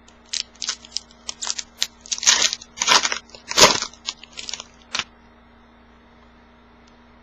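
Foil trading-card pack wrapper being torn open and crinkled: a run of short crackling rustles for about five seconds, then it stops.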